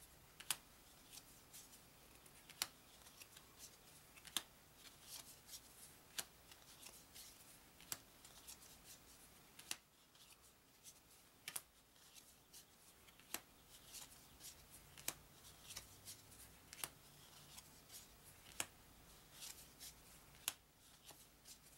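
Thick, stiff cardboard game cards dealt one at a time off a deck onto a pile, each landing with a sharp snap about every two seconds, with fainter flicks and slides in between.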